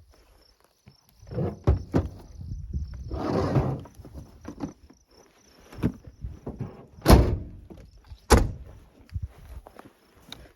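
A few heavy knocks and thumps with a stretch of rustling and scraping, like gear being handled or moved. Insects trill faintly in the background during the first few seconds.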